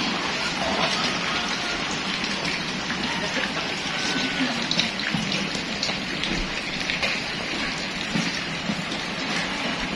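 Steady rain falling, with drops pattering on surfaces close by.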